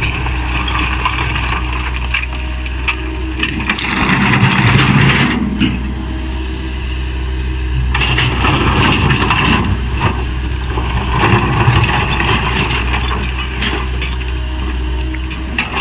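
Komatsu PC160LC hydraulic excavator running steadily while its bucket scrapes and shoves loose riprap stones, the rocks grinding and clattering in several spells over the engine's hum.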